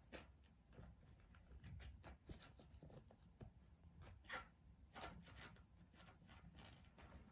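Faint scratching and rustling as a kitten paws at a nylon play tunnel and the carpet, in short irregular scrapes, the loudest about four seconds in.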